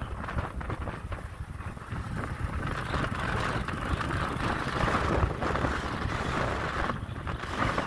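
Motorbike running along a dirt road, with wind buffeting the microphone in a steady, fluttering rumble.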